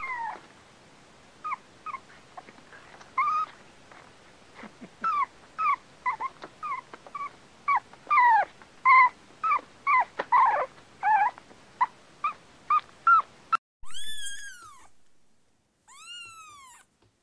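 A dog whining: a long series of short, high, falling whimpers, coming thicker and louder toward the middle. Near the end they stop suddenly and a cat gives two long, drawn-out meows.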